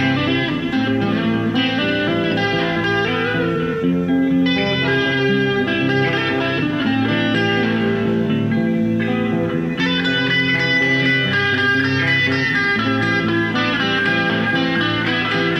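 Electric guitar playing continuously, many notes ringing over one another.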